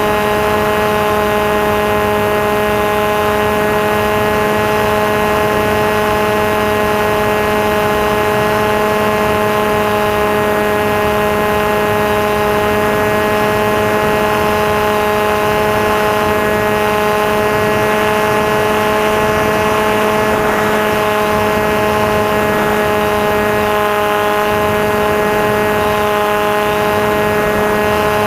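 Electric motor and propeller of a Maxi Swift FPV flying wing running steadily in flight, a constant-pitch drone that holds throttle without change.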